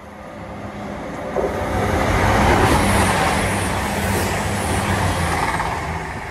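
East Midlands Railway class 222 Meridian diesel multiple unit passing at speed. Its underfloor diesel engines give a steady low hum beneath the rush of wheels and air. The sound swells to a peak about halfway through and then begins to fade as the train goes by.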